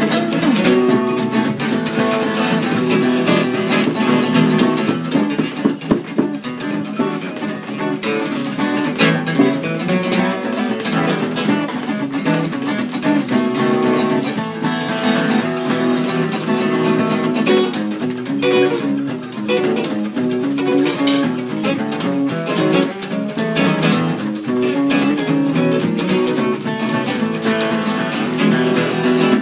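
Acoustic guitar playing a freestyle blues jam, picked notes and chords going on steadily.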